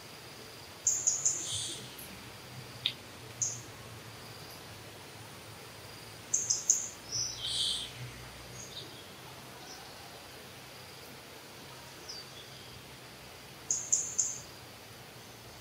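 Bird calls: a short phrase of sharp, high chirping notes, given three times several seconds apart, over a faint steady background hiss.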